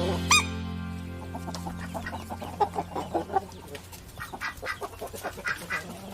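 Chickens clucking in a string of short repeated calls, with one sharp squawk just after the start.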